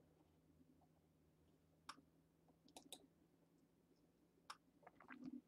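Near silence with a few faint, scattered computer-mouse clicks over a low steady hum.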